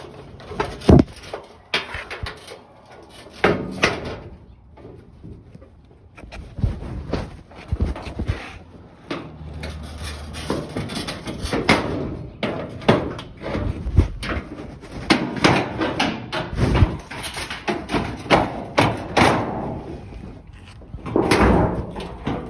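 Irregular clanks, knocks and rattles of sheet-metal stove parts being pulled loose and handled while an old electric stove is dismantled, with a few sharper bangs among them.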